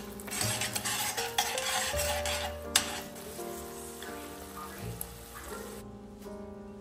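Eggs frying in oil in a stainless steel pan, sizzling steadily, with a metal spoon clicking against the pan as it stirs. The sizzle cuts off suddenly near the end, leaving soft background music.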